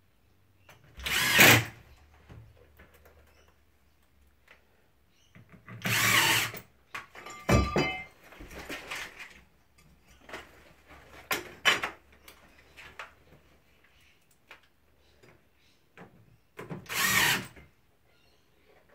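Cordless drill run in three short bursts, each under a second, with small clicks and knocks between them.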